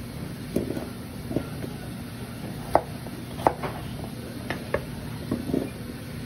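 Kitchen knife chopping peeled potatoes on a wooden cutting board: about eight irregular, sharp knocks of the blade on the board, over a steady low hum.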